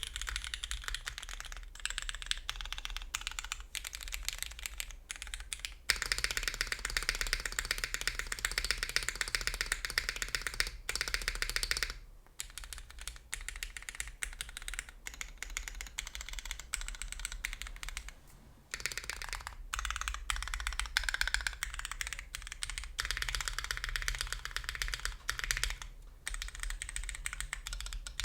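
Typing on a custom mechanical keyboard with linear Cherry MX Black switches: a steady stream of keystrokes. The typing speeds up and gets louder for several seconds in the first half, and stops briefly twice.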